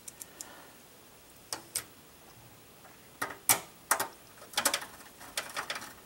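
Sharp metal clicks and taps from handling parts at the rear expansion-slot brackets of an open steel PC case. The clicks are scattered at first and come in a quick cluster near the end.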